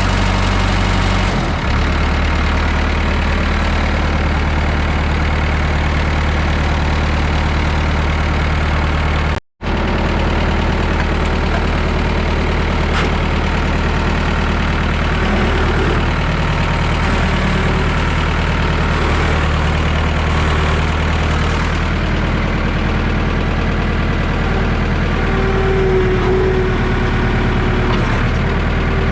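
1969 Massey Ferguson 3165 backhoe tractor's four-cylinder engine running steadily at idle, freshly started after a jump boost and starter fluid. Its note shifts about a second and a half in, and the sound cuts out for an instant about nine seconds in.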